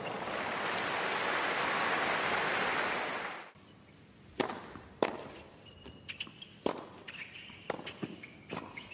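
Crowd applause that cuts off abruptly about three and a half seconds in, followed by a tennis serve and rally: a string of sharp racket-on-ball hits and ball bounces on a hard court.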